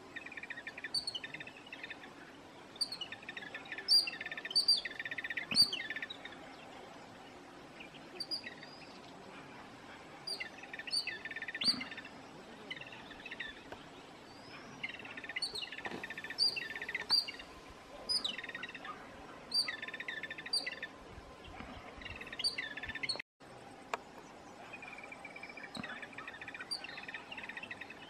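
Turdoides babblers calling: harsh, squeaky chattering notes that come in bursts of a second or two with short pauses between.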